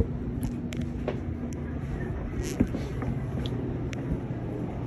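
Steady low hum of an idling motor vehicle, with a few small clicks and knocks scattered through it.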